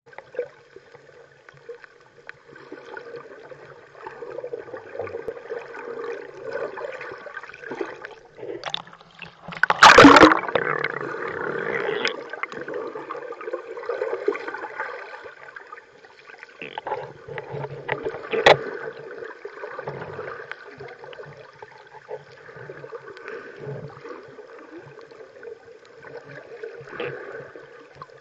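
Water heard through a submerged action camera: muffled gurgling and sloshing, with a loud rushing swirl about ten seconds in and a few sharp knocks, the loudest around eighteen seconds.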